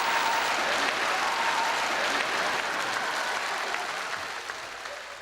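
Audience applauding, a dense patter of many hands that fades away over the last two seconds or so.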